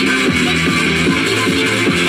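Electronic dance music playing loudly, with a steady beat.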